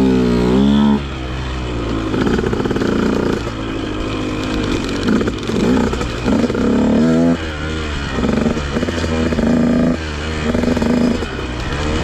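Husqvarna TC150 two-stroke dirt bike engine, heard from the rider's seat, revving up and down with the throttle, with several short drops off throttle, the first about a second in.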